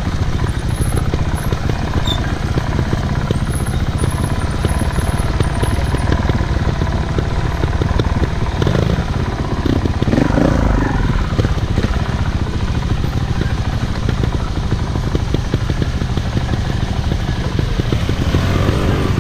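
Off-road motorcycle engine running steadily, with a fast, even pulsing rumble.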